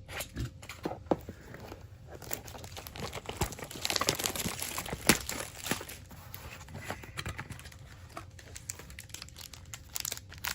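Plastic wrapping crinkling and tearing in the hands, with irregular sharp crackles that grow busier and louder about four seconds in, as a box of trading cards is unwrapped.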